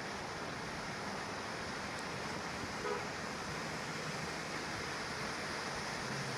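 Red smoke tube firework burning, giving off a steady, even hissing rush.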